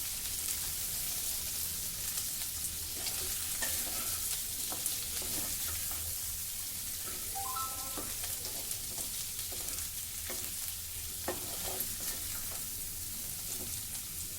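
Boiled potato pieces sizzling gently in oil in a pan on a low flame, with a spatula now and then scraping and stirring them in the pan.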